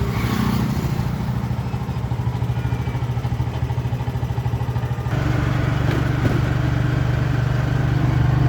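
Road traffic at a busy crossroads: a vehicle engine running steadily with a low hum, getting louder about five seconds in.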